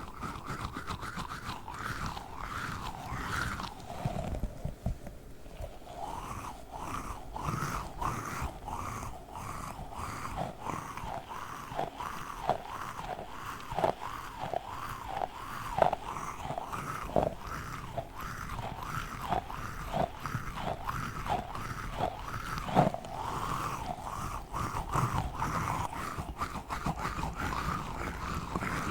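Tiny squishy octopus toy squeezed over and over, about twice a second, each squeeze giving a short squeaky squelch.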